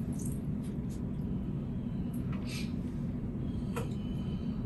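Soup being ladled from a stainless steel stockpot into a bowl: a few faint clinks and a short splash from the ladle, over a steady low hum.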